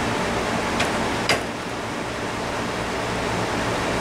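Steady rushing of a shop fan, with two short clicks about a second in from hand work on the moped's front wheel hub.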